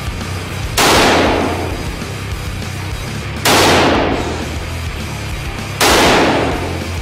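Three single shots from an AK-47 rifle (7.62×39mm) in an indoor firing range, each a sharp crack with a long echoing tail, roughly two and a half seconds apart. Steady background music plays underneath.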